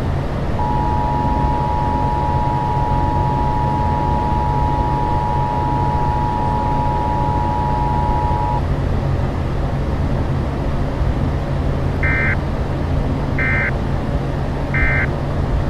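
Emergency-alert-style attention signal: a steady two-note tone held for about eight seconds, followed a few seconds later by three short higher beeps, over steady car road rumble.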